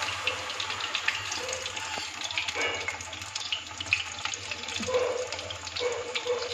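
Potato tikkis deep-frying in hot oil in an iron kadai: a steady sizzle full of small crackles and pops.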